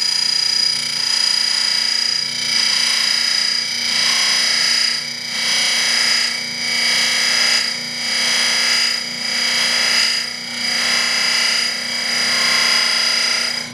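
Sharpened rasp cutter grinding a groove into the abrasive deburring wheel of a 1/4 hp, 1800 rpm Baldor buffer: a loud, harsh scraping over the motor's steady whine, swelling and easing in an even rhythm as the cutter bites into the spinning wheel.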